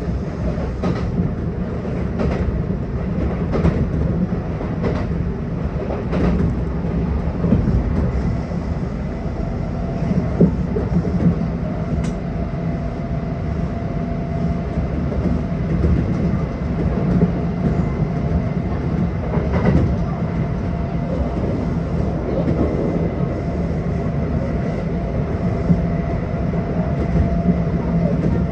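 Kintetsu 1252-series electric train running steadily along the line: a constant rumble of wheels on rail with a faint motor whine that holds one pitch. Scattered rail-joint clicks come through, most of them in the first six seconds or so.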